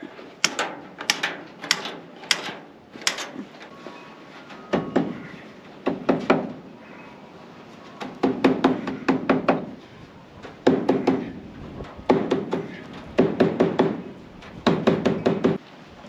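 A few sharp snips of wire cutters trimming galvanized hardware cloth, then runs of quick hammer strikes on a wooden post as the cut mesh is folded over and fastened down.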